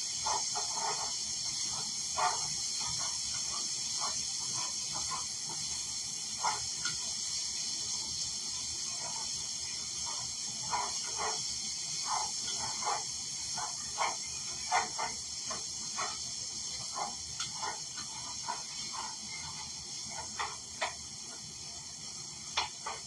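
Chickpeas frying in a pan: a steady sizzle with many short, irregular pops and clicks scattered through it.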